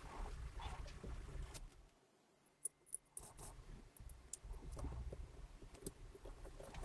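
Small tools clicking and tapping against watch parts during bench work, over a low handling rumble. About two seconds in it goes nearly silent for a second, broken by a few sharp clicks.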